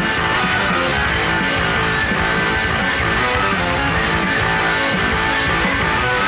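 Rock music with strummed electric guitar, playing under end credits.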